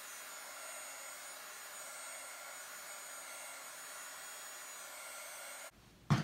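Craft heat gun blowing steadily, drying freshly stamped ink on a cardstock panel; it cuts off near the end.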